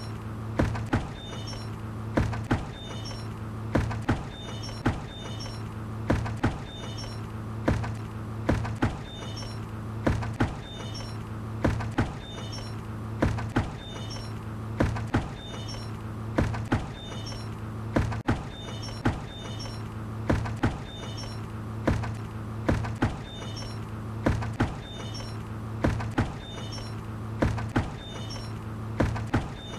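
A bucket knocking and creaking over and over, sharp knocks coming roughly in pairs about every two seconds, each with a short high squeak, over a steady low hum.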